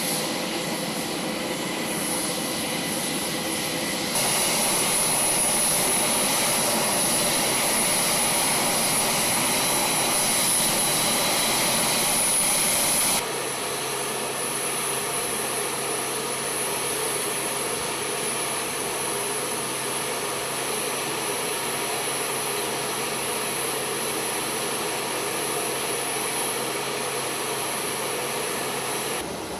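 WC-130J Hercules's Rolls-Royce AE 2100D3 turboprop engines running steadily, with a high whine over the noise. The sound steps up louder and brighter about four seconds in and drops back suddenly about thirteen seconds in.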